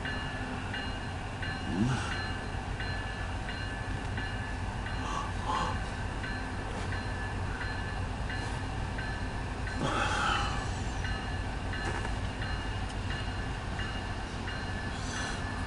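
Railroad grade-crossing bell dinging in a steady, even rhythm over the low rumble of an approaching CSX coal train.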